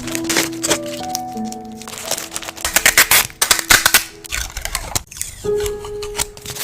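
Instrumental background music plays while packaging is handled, with crinkling and sharp clicks that are thickest about three to four seconds in.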